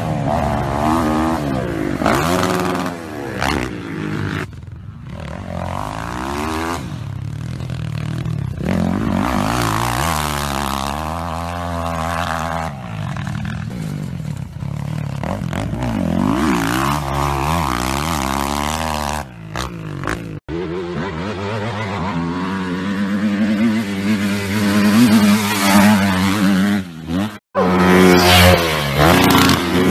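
Motocross dirt bike engines revving up and falling back again and again as the bikes ride the track, with a few abrupt cuts from one bike to the next.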